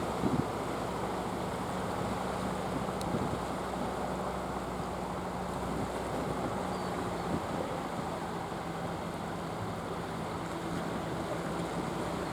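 Fishing boat engine running steadily as a low hum under the wash of surf, with wind buffeting the microphone.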